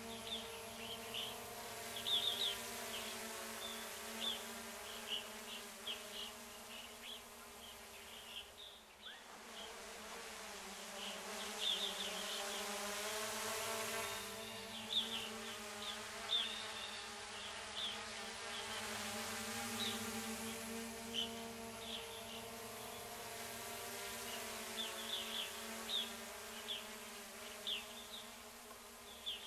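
FPV quadcopter drone's propellers buzzing in a steady multi-tone hum, the pitch shifting slightly as the motors change speed. Short high chirps are scattered over it.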